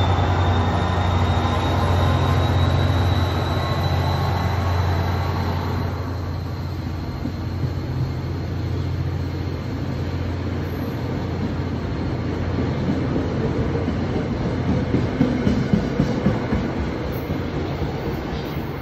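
NJ Transit GP40PH-2B diesel locomotive and its passenger coaches rolling past and pulling away: a loud low engine drone with a thin high whine for the first few seconds, then the steady rumble of the coaches' wheels, fading as the train leaves. A few sharp wheel clicks over rail joints come about fifteen seconds in.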